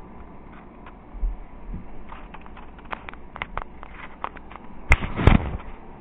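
Handling noise on a camera mounted on a quadcopter frame: scattered small clicks and taps, then two loud knocks close together near the end as the frame is turned over in the hands.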